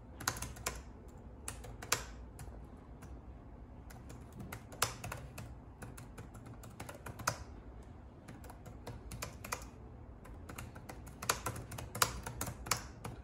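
Typing on an HP laptop keyboard: irregular key clicks in short runs with brief pauses between them.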